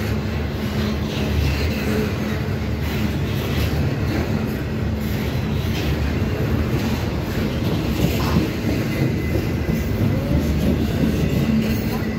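Freight cars of a CSX intermodal stack train rolling past: a steady rumble and clatter of steel wheels on the rails, with a faint high wheel squeal.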